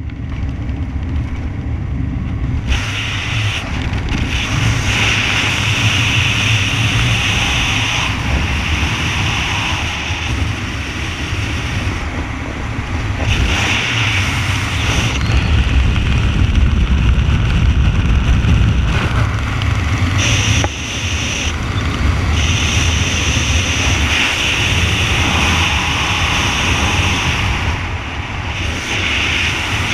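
Wind rushing over a helmet camera's microphone during a parachute canopy descent. It is a steady low rumble with a hiss above it, swelling and easing in gusts, with brief dips about 13 and 21 seconds in.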